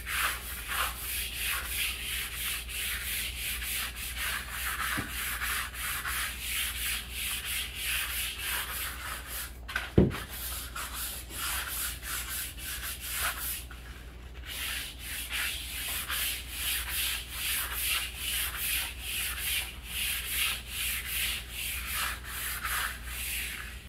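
A soft-bristle deck brush scrubbing back and forth over wet luxury vinyl plank flooring, a quick steady rhythm of scratchy strokes, working the misted cleaner into the textured surface. A single sharp knock about ten seconds in.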